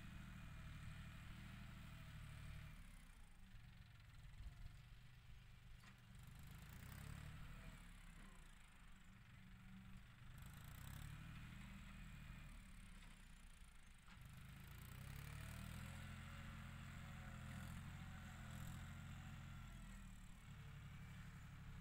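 Faint, distant John Deere 5045 tractor's diesel engine running as it pushes soil, its low drone swelling and fading, strongest about three-quarters of the way through.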